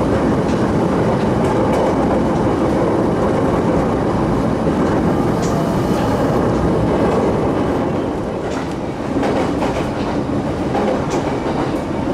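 Running noise of an electric commuter train heard from inside the passenger car: a steady rumble of the wheels on the rails, with a few sharp clicks as they pass over rail joints.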